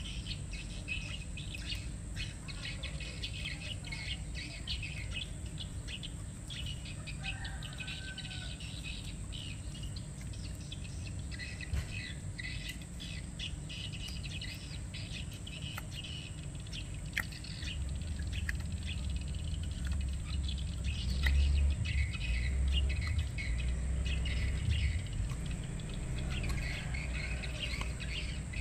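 Birds chirping and insects calling throughout, with a few sharp taps of a knife on a wooden chopping block. A low rumble grows louder for several seconds in the second half.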